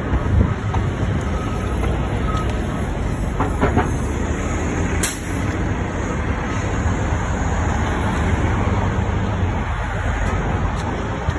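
Downtown street traffic: a city bus and cars driving past, with a steady low rumble of engines and tyres.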